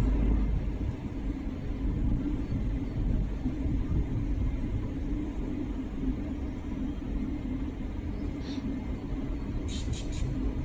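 A train running with a steady low rumble, and a few short clicks near the end.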